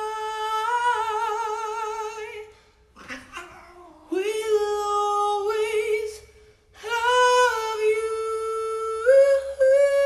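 A man singing wordless held notes in a high voice with a wavering vibrato, in three long phrases with short breaks about three and six seconds in.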